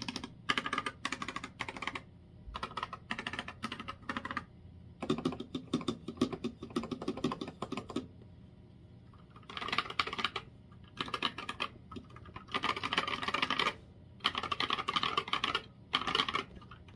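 Ractous RTK61 60% keyboard with Gateron red optical switches being typed on in fast bursts of clicks, with a pause of about a second and a half near the middle. The switches are mostly stock and unlubed, and the owner says they have a lot of spring ping.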